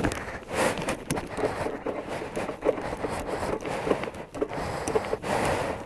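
Irregular rustling and scraping with scattered short clicks, with no engine running.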